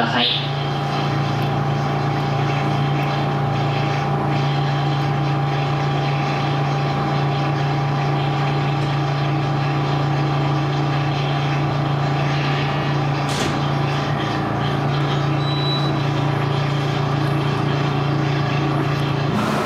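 Steady hum of a standing electric commuter train's onboard equipment, heard from inside the train, with a single faint click about two-thirds of the way in. The hum changes right at the end as the train starts to move.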